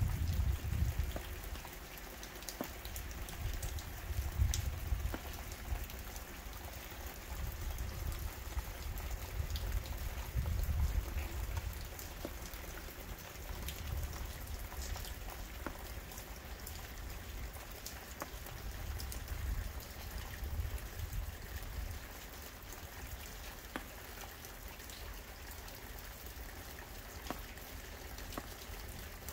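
Steady spring rain falling on a wet concrete driveway: an even hiss full of small drop ticks, over a low rumble that swells and fades.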